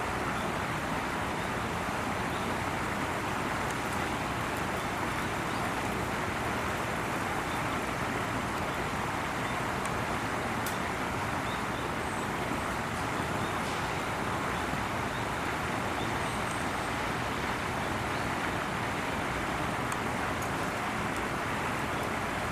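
Steady outdoor background noise, an even hiss like distant traffic or wind, with no calls or other clear events.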